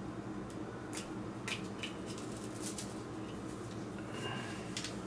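Handling noises from untangling a ring light's coiled power cable: a few light clicks and rustles, over a faint steady hum.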